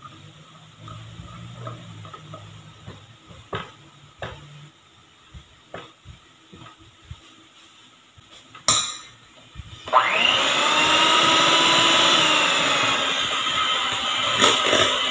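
Faint scraping and tapping of a spatula on a plastic yogurt cup and a sharp clack, then about ten seconds in an electric hand mixer starts and runs steadily, its beaters whisking cake batter in a steel bowl. A couple of knocks near the end as the beaters touch the bowl.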